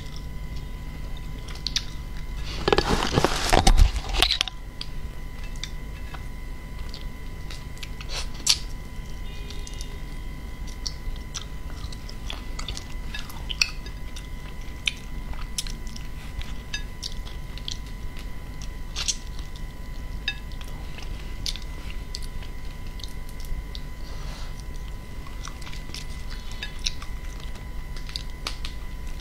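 Close-up chewing and crunching of cooked shrimp, with small clicks and crackles as the shells are peeled apart by hand. There is a loud burst of crunching about three seconds in. A faint steady hum and high tone run underneath.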